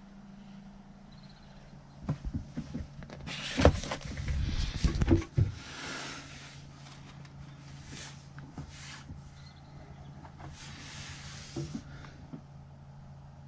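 Handling noise: a cluster of clicks, knocks and rustling between about two and six seconds in, and another short rustle later on, over a steady low hum.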